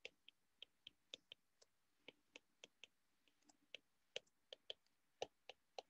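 Faint, irregular clicks of a stylus tip tapping on a tablet's glass screen, about three a second.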